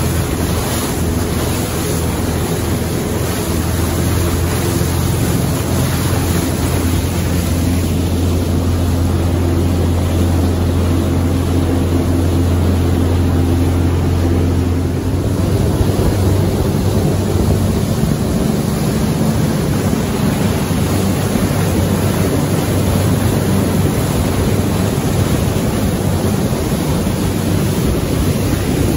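Arvor motor boat's Mercruiser diesel engine running under way with a steady low drone, its note shifting slightly about halfway through. Over it is the rush of the churning wake and wind buffeting the microphone.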